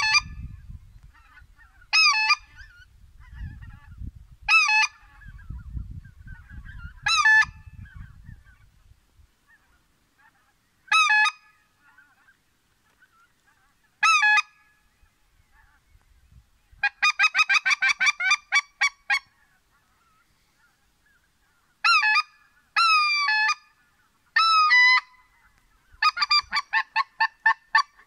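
Goose call blown to lure flying geese: single loud honks every two to three seconds, then quick runs of short honks, about six a second.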